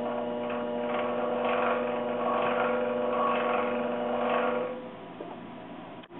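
Micro-Mark 7x14 mini lathe running with a coaxial indicator spinning in its four-jaw chuck: a steady hum with a rougher noise above it. It stops about four and a half seconds in, and the level falls away.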